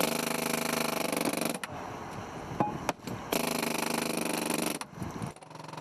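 Heavy construction machinery running with a rapid mechanical rattle. It is loud at first, drops back for about two seconds with a sharp click in between, then comes back loud before fading.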